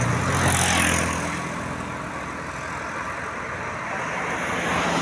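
Roadside traffic: a passing vehicle's engine runs loudly and fades away after about a second and a half. Road noise then swells again near the end as another vehicle approaches.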